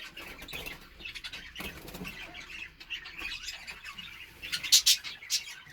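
Pet budgerigars chattering and chirping, with a few louder, sharp, high bursts about five seconds in.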